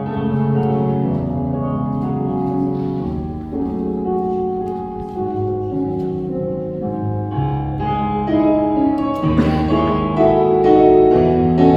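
Keyboard playing a slow instrumental introduction to a hymn, with held chords that change every second or two.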